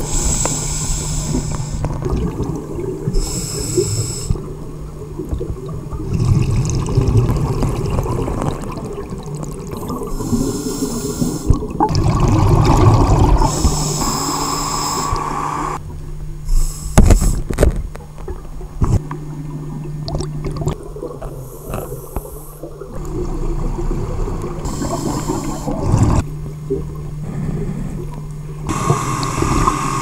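Scuba diver breathing through a regulator: a hissing inhale every few seconds, each followed by gurgling exhaled bubbles, over a steady low hum.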